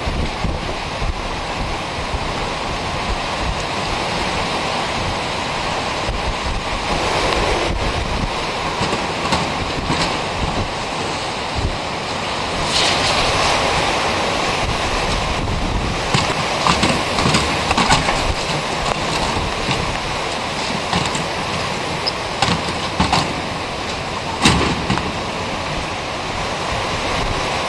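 Strong storm wind blowing steadily and buffeting the microphone, rising in a louder gust midway. Several brief sharp knocks come in the second half, the sharpest near the end.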